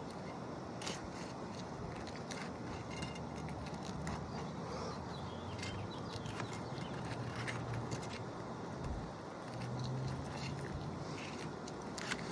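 Scattered clicks, taps and scrapes of hand tools working on asphalt roof shingles, over a steady outdoor background noise with a low hum now and then.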